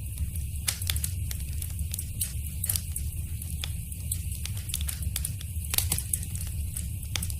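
Wood fire in a fireplace crackling, with frequent sharp pops and snaps over a steady low rumble of the burning flames.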